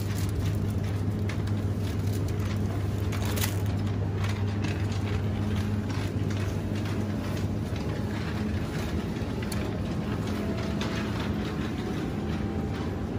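Metal shopping cart rolling over a tiled floor, its wheels rumbling and the wire basket rattling with many small irregular clicks, over a steady low hum.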